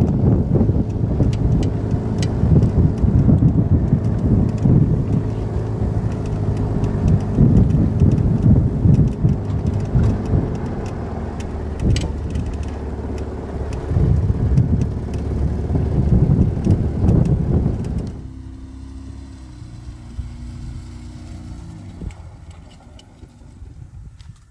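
Toyota Land Cruiser FZJ80 driving over a rough dirt track, heard from on board: loud engine, road and wind rumble with frequent knocks and rattles. About 18 seconds in the sound drops to a quieter, steady engine hum of the truck heard from outside.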